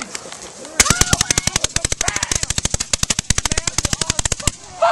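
Firework on the ground going off in a fast string of sharp cracks, more than ten a second. It starts about a second in and stops shortly before the end.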